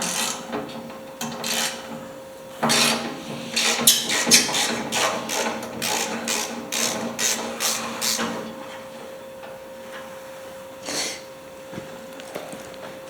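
Ratchet wrench clicking as it works the hood bolts loose on a 1954 Farmall Cub: a few single clicks, then a quick run of strokes for several seconds and one more click near the end.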